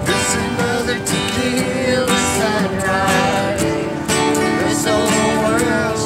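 Acoustic guitar strummed steadily while a man sings a melody over it.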